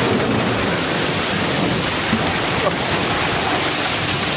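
Seawater from a breaking wave crashing over a warship's bow and pouring down the bridge windows: a loud, steady rush of water.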